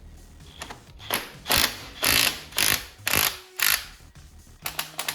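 Hand ratchet wrench worked back and forth in about six quick strokes, roughly two a second, its pawl rasping on each stroke as it turns a bolt.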